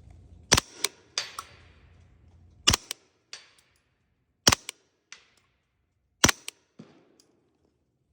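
Integrally suppressed CZ Scorpion firing four single shots at a slow, even pace, about 1.8 seconds apart; each muffled crack is followed by smaller metallic clicks and a brief clatter.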